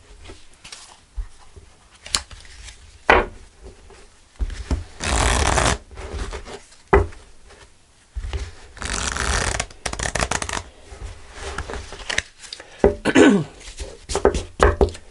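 A tarot deck being shuffled by hand. There are two longer stretches of shuffling, about five and nine seconds in, with scattered taps and flicks of the cards between them.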